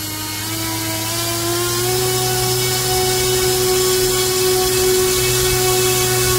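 Battery-powered electric motor spinning a 3D-printed three-blade 11x6 scale Hamilton Standard propeller up from three-quarter to full throttle on a thrust stand. Its pitch rises over about the first two seconds and the sound grows louder, then holds steady at full power.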